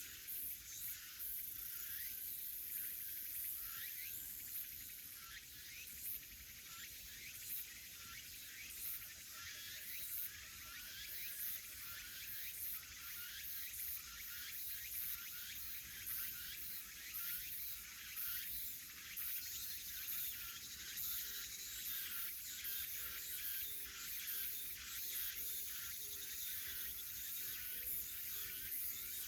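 Forest ambience: a steady, pulsing insect drone, which the recording presents as cicadas, with many small birds chirping and twittering over it.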